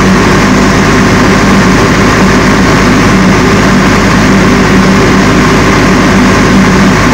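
22 kVA Able diesel generator running steadily with a constant hum, carrying a light load.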